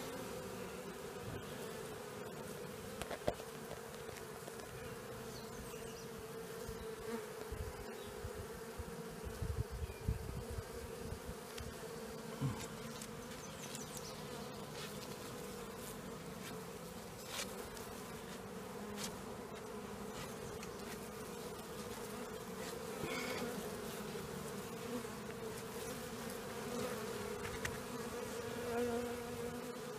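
A swarm of honeybees buzzing in a steady hum around and on a swarm box as the last of them crawl in. A few soft knocks come through about 3, 10 and 12 seconds in.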